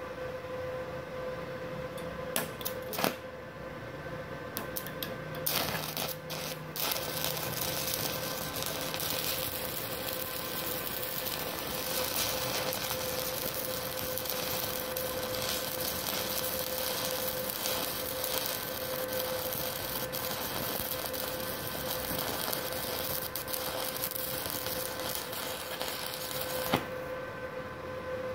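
Stick (MMA) arc welding with a 2.6 mm electrode at about 60 A from a MultiPro MMA 120 IGBT inverter welder on a 900-watt household supply. A few scratches strike the arc, then the arc crackles steadily for about twenty seconds and cuts off near the end. A steady hum runs underneath. The welder runs well on the 900-watt supply.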